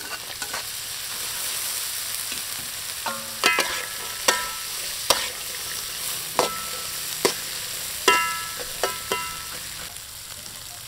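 Young green peppercorns sizzling in hot oil in a metal wok while a metal spatula stirs them. The spatula scrapes and strikes the pan repeatedly in the second half, each strike ringing briefly.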